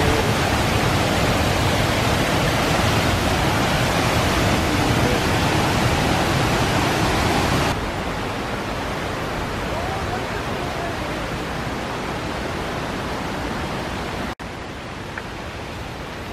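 Stream water rushing over rocks, a steady loud rush. About eight seconds in it cuts abruptly to a quieter steady hiss, which drops again with another cut near the end.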